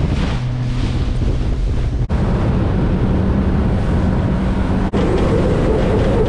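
Honda four-stroke outboard running steadily at cruising speed, with wind buffeting the microphone and the rush of spray and water along the hull.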